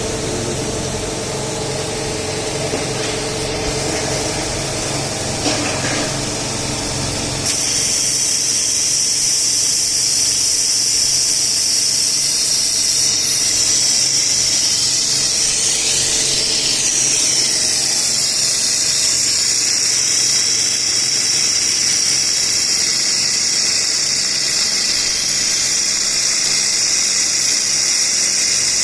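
A 3000 W laser welding machine on a robot arm at work: a steady machine hum, then about seven seconds in a loud, steady high hiss starts abruptly and holds.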